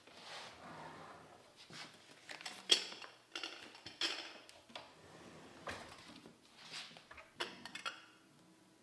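Kitchen handling sounds: a wooden cabinet opening and a pull-out drawer sliding, then glass and a glass jar knocking and clinking as a glass teapot is set down. A string of short knocks and clicks, the sharpest about two and a half seconds in.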